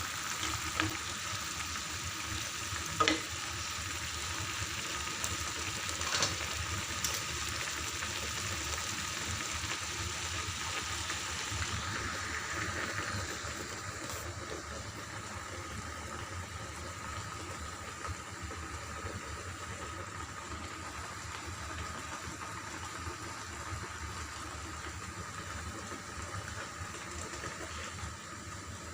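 Chicken adobo cooking in its soy-sauce liquid in a pan: a steady bubbling hiss, with a few sharp clinks of a utensil against the pan in the first seven seconds. The hiss drops a little about halfway through.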